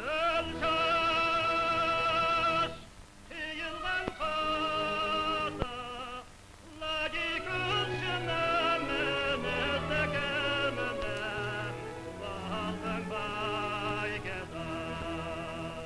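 A female soprano sings in operatic style: long held high notes with a wide vibrato, in phrases broken by short pauses about three and six and a half seconds in. A low accompaniment sustains notes underneath. It is an old archival recording from the 1940s–50s.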